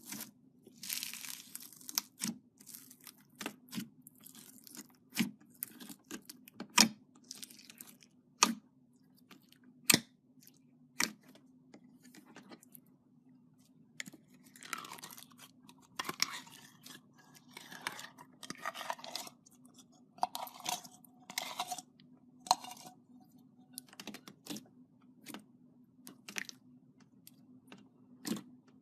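Slime being squeezed, poked and stretched by hand: sharp wet pops and clicks at irregular intervals, with stretches of sticky crackling. A faint steady hum runs underneath.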